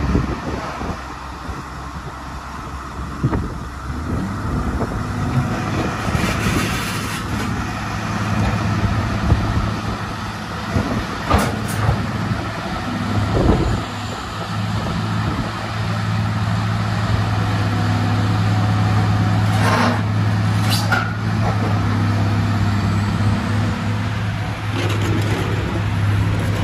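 Caterpillar 345B excavator's diesel engine running steadily with a deep hum that grows louder past the middle as the machine works. A few sharp knocks and short hisses sound over it.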